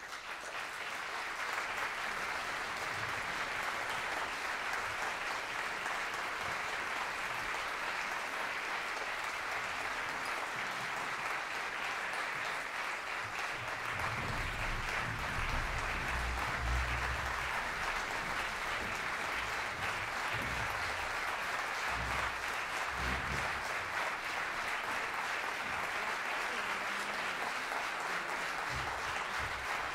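Concert audience applauding an orchestra: dense, steady clapping that swells up within the first second or two and carries on throughout, with a few low thuds in the middle.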